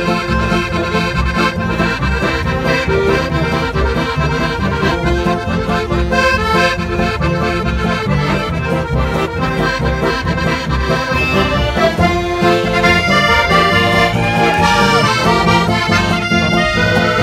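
Folk band playing traditional music on two accordions, a piano accordion and a button accordion, backed by a tuba and an upright double bass.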